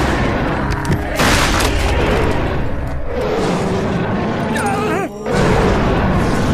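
Cartoon soundtrack: music mixed with loud booming sound effects, with a sharp crash about a second in and a brief drop just after five seconds.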